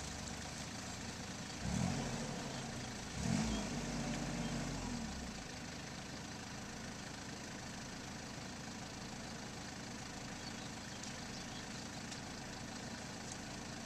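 Small farm tractor engines running steadily, with one engine revving up and back down twice, briefly about two seconds in and again for about two seconds just after, while the lead tractor is stuck in paddy mud.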